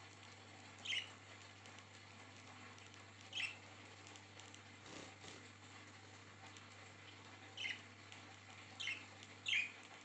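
Young budgerigar giving five short chirps, each dropping in pitch, spaced out at first and coming closer together near the end, over a low steady hum.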